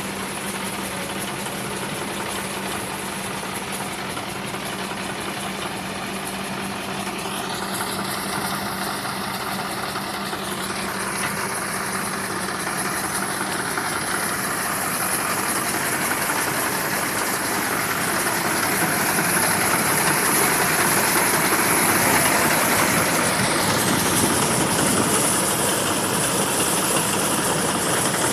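A car engine rebuilt to drive a water pump, running steadily. It grows gradually louder through the second half.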